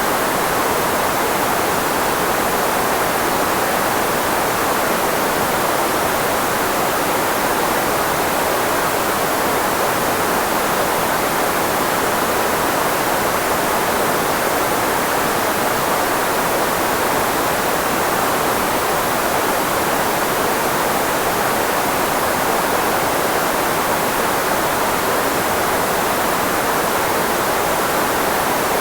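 Steady filtered white noise, a continuous even hiss weighted toward the middle range of the human voice so that it masks nearby speech.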